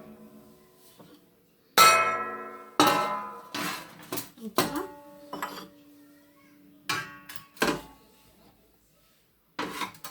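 Metal oven baking tray clanking as a baking dish is set down on it and handled: about six sharp knocks, each leaving a ringing tone that dies away over about a second. The loudest knock comes about two seconds in.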